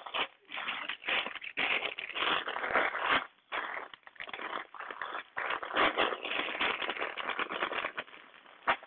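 Clear plastic bags of Lego pieces crinkling as they are handled and moved about on the table, the loose bricks inside rattling, in irregular spurts with a brief pause about three and a half seconds in.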